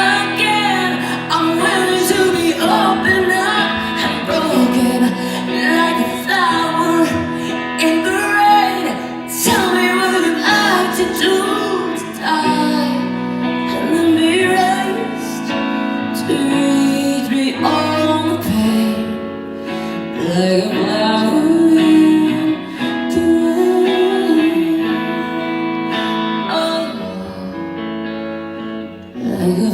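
Live pop ballad performance: a woman singing with guitar-led band accompaniment, her voice gliding through long drawn-out notes without clear words.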